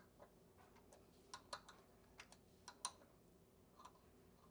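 Faint, irregular clicks and ticks of hand tools and metal fittings being worked on an exercise bike's crank area, about nine in all, with no steady rhythm.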